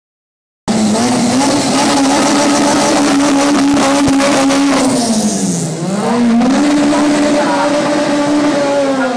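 Car engine starting suddenly under a second in, held at high, steady revs with tyres screeching. About five seconds in the revs dip and climb back and the tyre noise falls away, the engine then held high again.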